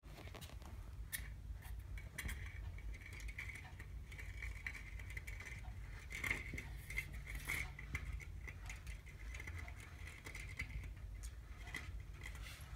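A Sphynx cat's paw tapping and pawing at window glass: scattered light taps over a low steady hum.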